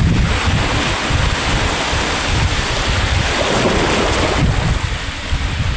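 Sea waves washing onto the shore in a steady surf, with wind buffeting the microphone in a gusty low rumble.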